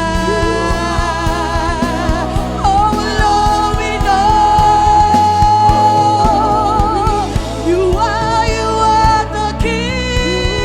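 Live gospel worship music: a singer holds a long note with vibrato over sustained keyboard chords, bass and a steady drum beat.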